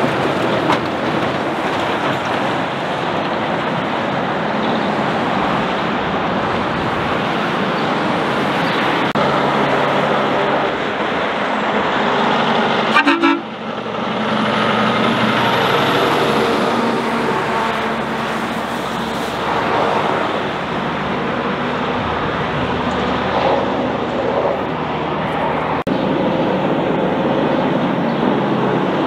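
Heavy diesel trucks with trailers passing one after another, engines and tyres loud and steady. A truck horn gives a short toot about halfway through.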